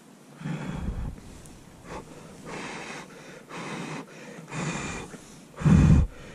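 A man eating hot sukiyaki udon noodles: a series of short breathy blows and slurps, the loudest near the end.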